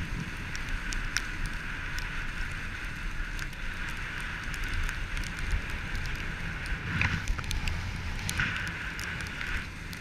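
Skis sliding over firm, packed snow: a steady scraping hiss, with low wind rumble on the microphone and scattered clicks.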